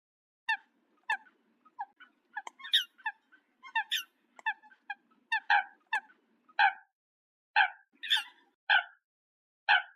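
Eurasian coot calling: a run of about twenty short, sharp, abrupt calls at uneven intervals.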